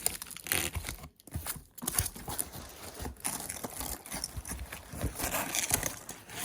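Packaging crinkling and rustling as it is unwrapped by hand, in an irregular run of crackles and short rustles.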